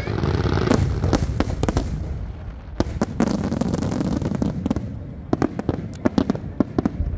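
Aerial fireworks bursting overhead: a rolling low rumble under clusters of sharp bangs and crackles. The cracks come densest about a second in, again around three seconds, and then as a run of separate reports from about five to seven seconds in.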